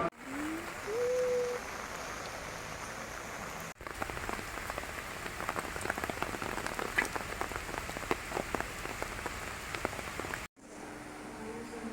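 Rain or water drops pattering on a surface: a steady hiss crowded with many small taps, in short clips cut together. A brief call rises and then holds in the first second or so.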